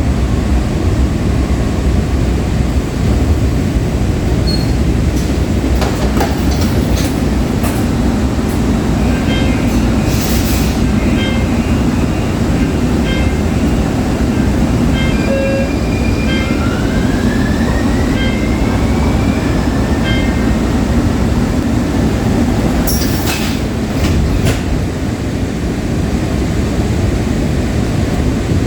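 Breda LRV3 light rail car running, heard from on board: a steady rumble of wheels on rail. A faint whine rises in pitch about two-thirds of the way through, and there are a few sharp clunks.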